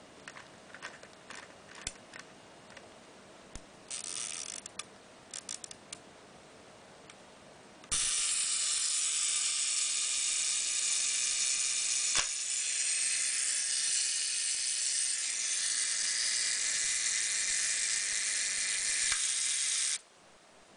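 Zorki-4 rangefinder camera mechanism: a few small clicks and a short ratcheting burst as its controls are worked. Then, about eight seconds in, its clockwork self-timer starts buzzing and runs steadily for about twelve seconds, with a click partway and another near the end, before stopping abruptly.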